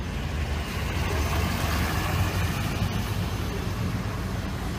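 Engine of a large emergency vehicle idling, a steady low rumble.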